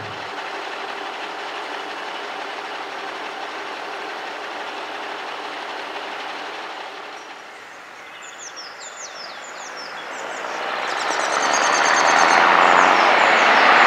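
Kenworth W900 truck's diesel engine: a steady, distant running sound for the first several seconds, then growing louder from about ten seconds in as the truck drives closer, loudest near the end. Birds chirp in the middle.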